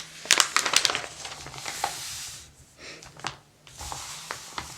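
Pages of a paper catalog being turned: a quick cluster of crisp crackles in the first second, then soft sliding rustles of paper.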